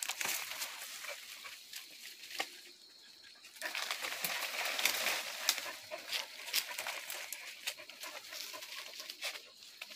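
Hunting dogs at the foot of a tree where they have treed an animal, taken for an opossum, their yelping mixed with brush rustling and twigs snapping as they scramble at the trunk; the rustling grows louder a few seconds in.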